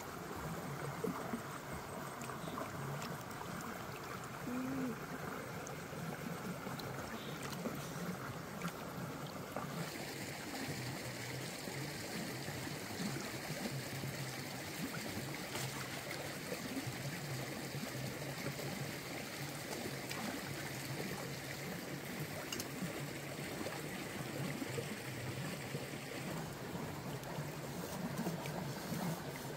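Shallow stream water running and trickling over rocks, a steady wash whose sound shifts about ten seconds in.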